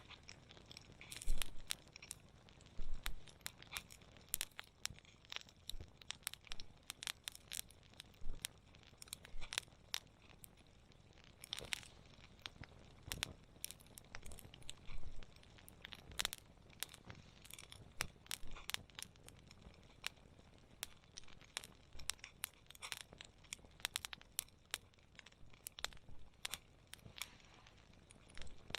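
Wood campfire crackling: irregular sharp pops and snaps, several a second, over a faint steady hiss.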